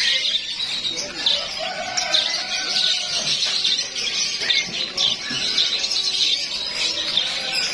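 Many small caged songbirds chirping and twittering at once, a dense overlapping chorus of short high calls.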